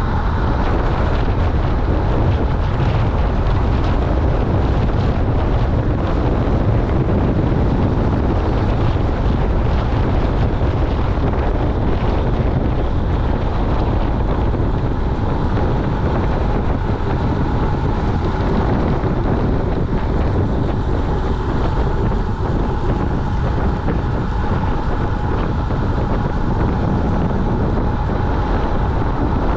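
Wind buffeting the microphone of a camera on a moving road bicycle: a steady rushing with a heavy low rumble.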